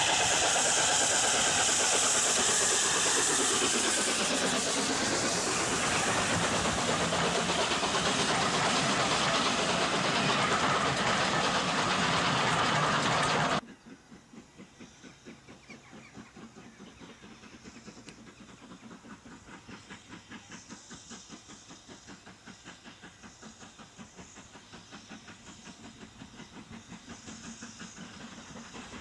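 LNER A4 Pacific steam locomotive passing close with its train: a loud, steady hiss of steam and exhaust over the running of the train, easing a little after about four seconds. About halfway through it cuts off abruptly, giving way to a distant steam train working towards the listener, its rapid exhaust beats faint at first and slowly growing louder.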